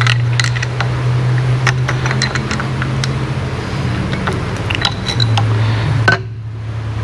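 Light metallic clicks and clinks of a piston, wrist pin and small hand tools being handled on a V-twin engine block, over a steady low hum.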